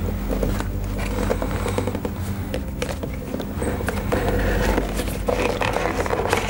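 Cardboard smartphone box being handled and opened by hand: irregular light scraping, rubbing and small taps of the cardboard as the lid is worked loose, over a steady low hum.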